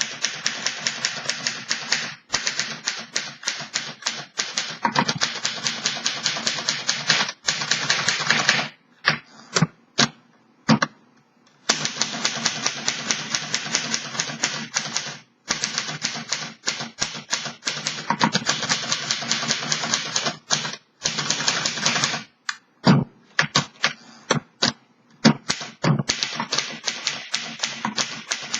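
1930 Underwood Portable 4-bank C-model manual typewriter being typed on at a quick, even pace: long runs of rapid key strikes. The runs break off about nine and twenty-two seconds in, for a few seconds of separate, louder single clacks.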